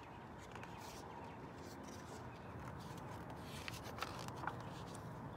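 Picture-book pages being turned by hand: faint paper rustling with a few soft clicks.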